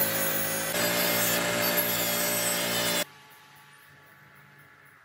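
Pen-style micro-motor rotary tool with a small sanding disc running steadily with a high whine while sanding the edge of a thin wooden cutout, growing louder a little under a second in. It cuts off suddenly about three seconds in, leaving only faint background noise.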